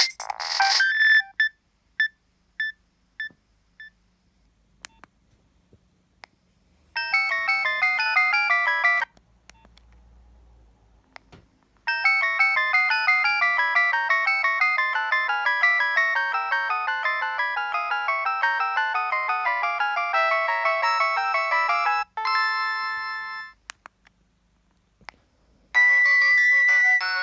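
Nokia 7250i mobile phone playing its preloaded ringtones one after another: a few short repeated beeps, then brief electronic melodies with several notes at once, separated by pauses. The longest tune runs about ten seconds and ends on a held chord that fades out.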